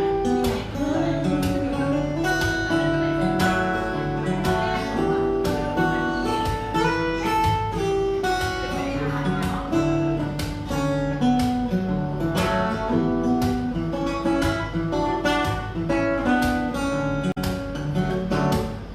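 Acoustic guitar played solo, picking a stepwise melody over chords with steady plucked notes. This is the song's closing instrumental passage.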